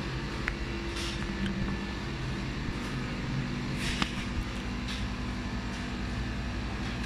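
Steady low mechanical hum, a running motor or engine, with a few faint knocks and clicks over it.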